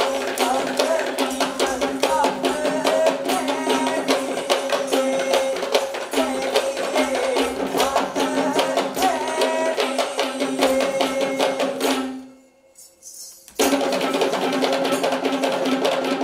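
Kandyan geta bera drums, double-headed and hand-played, beaten in fast, dense strokes over a steady held tone. About twelve seconds in the music stops dead for about a second and a half, then the drums crash back in together.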